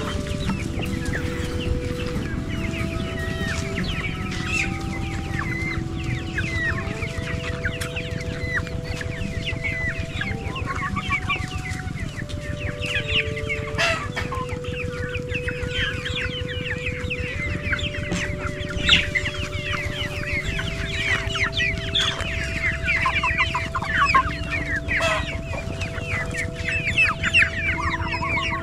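A flock of young chickens cheeping and clucking continuously as they feed, many short high calls overlapping.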